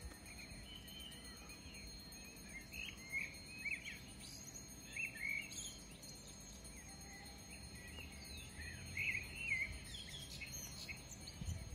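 Small birds chirping and twittering in short, quick calls, coming in little clusters, over a faint low background rumble.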